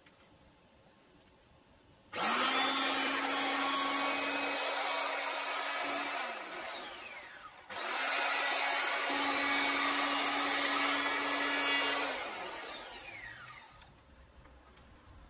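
Bosch PHO 2000 electric hand planer switched on twice, running with a steady hum and rushing noise for about four seconds each time as it is pushed along a wooden board, planing it. After each release it winds down with a falling whine.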